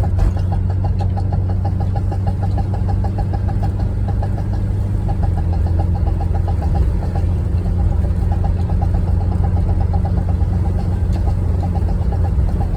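Volkswagen Vanagon engine running steadily, with a rapid, regular popping or ticking, several pops a second, over its low drone: the popping noise being investigated.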